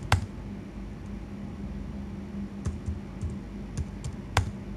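Computer keyboard keys pressed in a few separate clicks, one sharper keystroke near the end, over a steady low hum.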